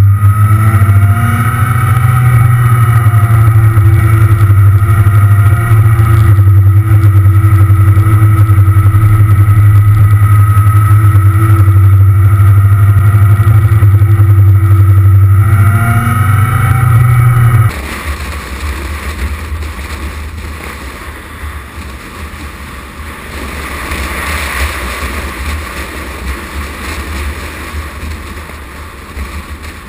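Motorcycle engine running steadily at cruising speed, loud and close on the bike's own camera. A bit past halfway it cuts off abruptly to a rush of wind noise on the microphone, with the engine much fainter.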